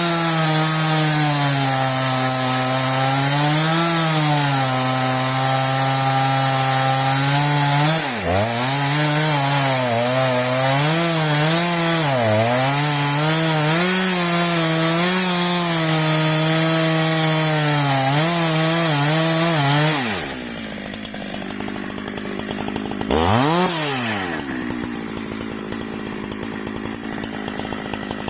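Husqvarna chainsaw cutting through a termite-eaten gerunggang log at high speed, its engine pitch wavering under the load of the cut. About 20 seconds in the saw drops to idle, is blipped once briefly a few seconds later, and then idles.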